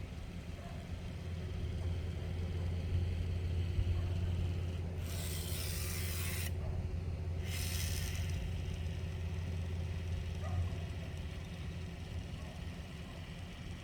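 Low steady engine rumble that swells for several seconds in the middle, with two short bursts of hiss about five and seven and a half seconds in.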